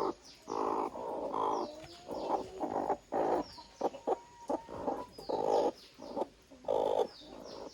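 Broody hens on the nest clucking in about a dozen short, rough bursts, the grumbling of sitting hens that have just been disturbed and made to share a nest.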